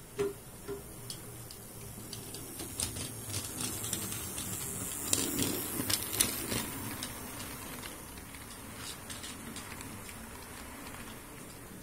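Model railway passenger coaches rolling past on the layout's track: a rapid patter of small wheels clicking over the rail joints that builds to its loudest about halfway through, then fades as the train moves away.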